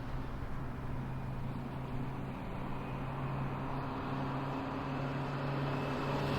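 Road vehicle engine running steadily with a low hum and road noise, slowly getting louder.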